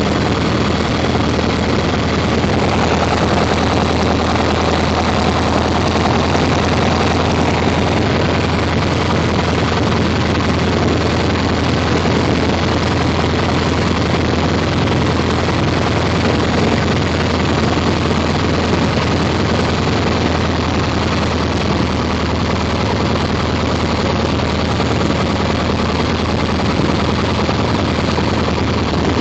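Cessna 150M's four-cylinder engine and propeller running steadily at low taxiing power, heard inside the small cabin.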